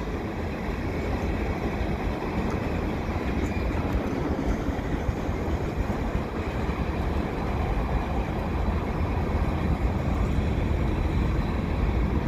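Tank cars of a freight train rolling past: a steady rumble of steel wheels on the rails, growing slightly louder.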